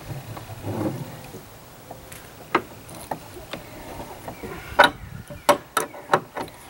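Metal clicks and clinks of a hand wrench being worked on a nut, tightening a through-bolt that draws new plywood transom boards up against a boat's fibreglass hull. The clicks come about every half second, faster and louder in the last couple of seconds.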